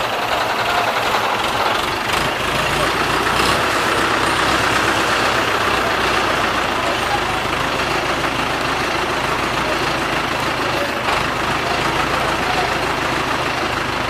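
Diesel engine of an Escorts Hydra 12 mobile crane running steadily. It grows louder and deeper about two seconds in and eases back a few seconds later, while the crane holds the slung road roller over the truck bed.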